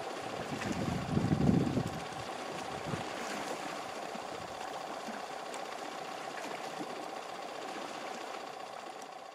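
Sea washing against shoreline rocks: a steady rush of water noise with a thin steady tone in it, and a louder, deeper surge about a second in.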